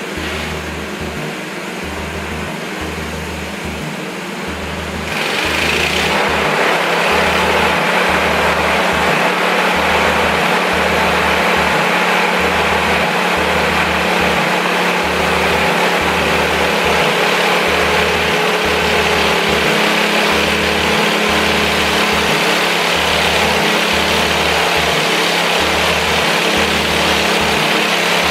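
A 7.5 HP small engine drives a grain flour mill, running steadily. About five seconds in it gets louder and harsher, with more hiss-like grinding noise, and then holds steady at that higher level.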